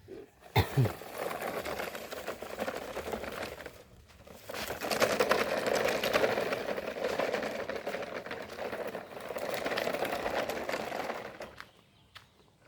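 Motorised toy vehicle's small electric motor and gears whirring as it drives, in two stretches with a short pause about four seconds in. A knock sounds about half a second in.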